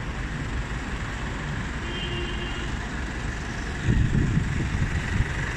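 Steady rumble of road traffic and vehicle engines, with wind buffeting the microphone from about four seconds in.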